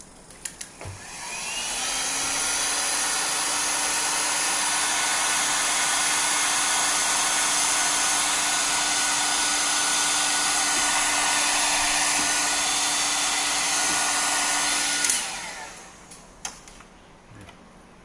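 An electric heat gun is switched on with a click and its fan spins up, rising to a steady blowing whir with a low motor hum. It is shrinking heat-shrink tubing over a coaxial cable's N-male connector. About fifteen seconds in, it switches off and winds down.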